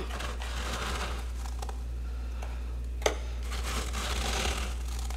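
A hand crunching and scraping through soft, snow-like freezer frost in two spells, with one sharp crack a little past halfway, the loudest sound.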